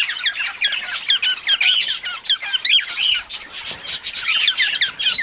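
An aviary flock of small pet parrots chattering: many short, quick chirps and sweeping calls from several birds at once, overlapping without a break.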